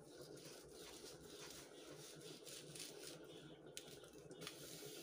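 Faint, soft scraping of a kitchen knife slicing raw pork held over a plastic tub, over quiet room tone.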